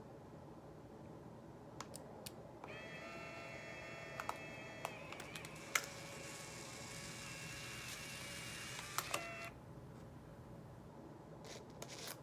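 Polaroid instant camera's motor whirring for about seven seconds, ejecting the dark slide (the film pack's cover) after a new film pack is loaded. Light plastic clicks from handling the camera come before and after, with one sharp click partway through the whir.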